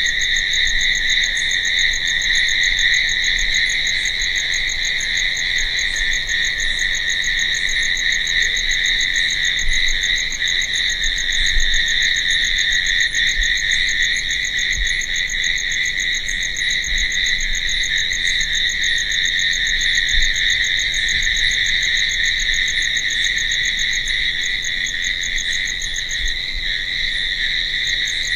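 Night chorus of crickets chirping in a continuous, steady high trill with no pauses.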